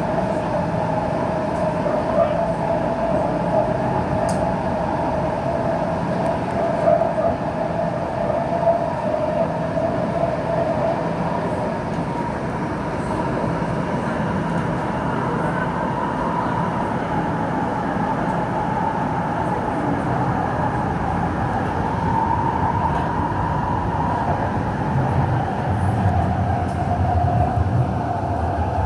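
São Paulo Metro Line 5-Lilac train running, heard from inside the car: steady running noise with a whine held at one pitch. A deeper rumble swells near the end.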